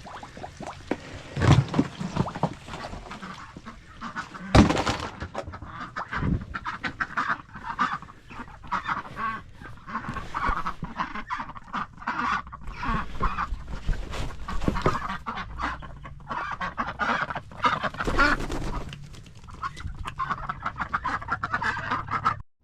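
A flock of ducks quacking loudly and without a break, many calls overlapping. Two sharp knocks stand out about a second and a half and four and a half seconds in.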